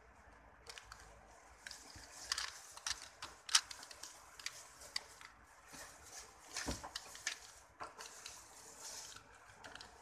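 A plastic 4x4 Rubik's cube being turned by hand while its edges are paired: quick, irregular clicks and scrapes of the layers turning, several a second.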